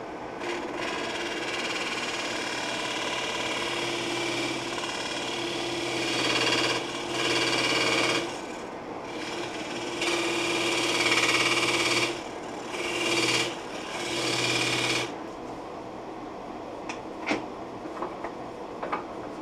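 Laguna Revo 12/16 wood lathe running with a steady hum while a turning tool cuts the rim of a small Russian olive bowl, in several hissing, scraping passes. The cutting stops about three quarters of the way through, leaving a quieter hum and a few light clicks near the end.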